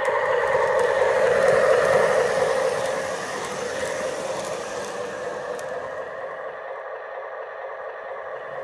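Model train running on its track: the Menards Santa Fe diesel locomotive's motor and the coaches' wheels making a steady rolling whir that is loudest about two seconds in as the engine passes close, then fades as the train moves away.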